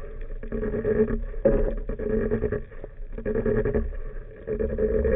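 Boat engine heard underwater, a low hum with a steady pitch that swells and fades about once a second.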